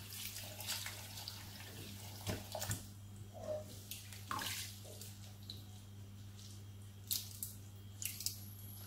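Water splashing and dripping in a glass bowl as handfuls of soaking abacha (dried shredded cassava) are squeezed and lifted, with several short sharp splashes. The shreds still give a faint crunch as they are handled, a sign they have not yet soaked enough.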